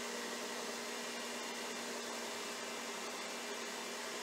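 Electric stand mixer running steadily, its whisk whipping a cream mixture in a stainless steel bowl until it thickens: an even motor hum and whir.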